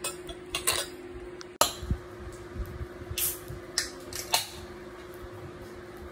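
A child drinking, first through a juice-box straw and then from a cup: short sips and swallows with a few sharp handling knocks, the loudest about a second and a half in, over a steady background hum.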